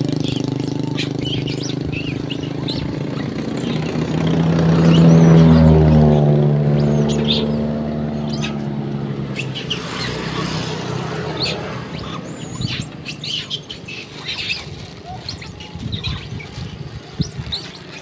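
A motor vehicle passes on the road: its engine hum swells to loudest about five seconds in, drops in pitch and fades by about ten seconds. Short high chirps and squeaks come throughout, from the young macaques.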